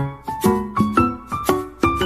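Background music: a light, brisk melody of quickly struck, fast-fading notes, about five a second.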